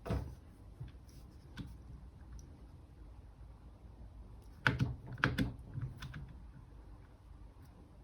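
Light metallic clicks and knocks of a Multifix tool post being handled and taken off a lathe's compound slide: a few scattered faint clicks, then a quick cluster of sharper knocks about five seconds in.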